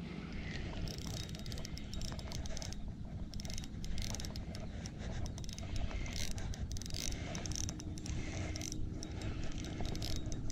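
Shimano Nexave 2500 spinning reel being wound, its gears and rotor giving a fine clicking whirr in short spells with brief pauses, as line is taken in while a darting lure is worked. A steady low rumble runs underneath.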